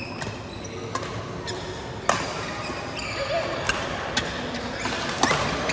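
Badminton rally: sharp smacks of rackets striking the shuttlecock every half second to a second, the loudest about two seconds in and near the end, over the steady background noise of a busy sports hall.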